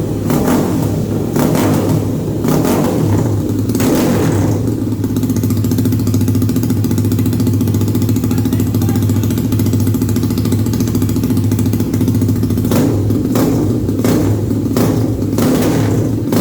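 Single-cylinder engine of a Honda Twister drag-racing prototype bored out to 485 cc, running loud. The throttle is blipped several times in the first few seconds, the engine idles steadily in the middle, and the blips start again near the end.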